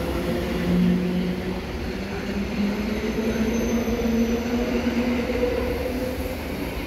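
SKM electric multiple unit pulling out of the platform and gathering speed: a rumble of wheels on the rails with a whine from the electric drive that rises in pitch as it accelerates.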